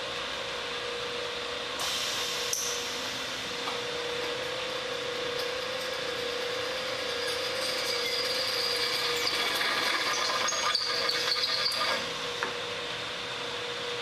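AutoDrill two-axis drilling machine's spindle motor running with a steady whine, its bit cutting into a metal extrusion with a hiss that starts about two seconds in and stops about twelve seconds in.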